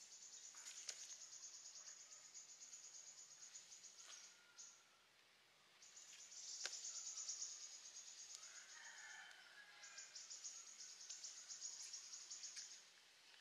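Faint, high, rapidly pulsed insect trill in three long spells, with a bird calling faintly about two-thirds of the way through and a couple of soft clicks.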